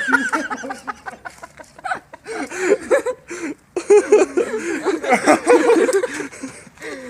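People laughing in several bursts, with short breaks between them.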